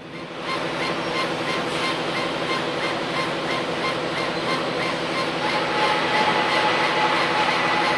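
CO2 laser engraving machine at work: a steady hissing rush with a motor whine. The whine comes in short repeated pulses, about three a second, then holds as a steady tone from about five and a half seconds in.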